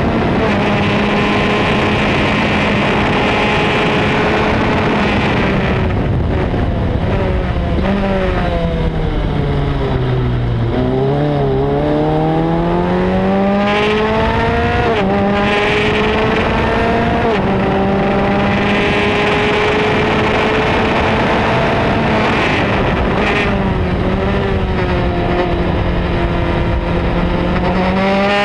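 Onboard sound of a Formula Speed 2.0 race car's engine at high revs. About a third of the way in the revs fall in steps as the car slows for a corner, then climb again through gear changes and settle back at high revs, with a brief dip near the end.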